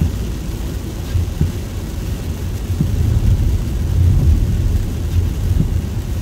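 Low, steady rumble of a car driving on a wet road, heard from inside the cabin, with soft thumps about every second and a half.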